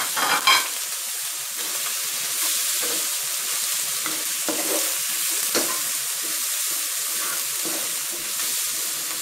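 Wooden spatula stirring and scraping fish balls and freshly added boiled bamboo shoots around a hot wok, over a steady sizzle of frying. One sharper knock of the spatula against the pan comes a little past halfway.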